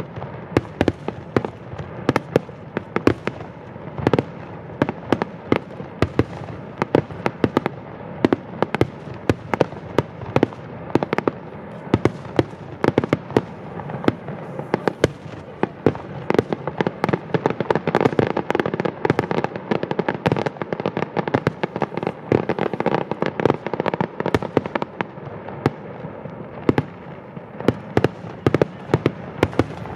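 Fireworks display: a dense, unbroken barrage of aerial shell bursts, many sharp bangs a second over a continuous rumble and crackle.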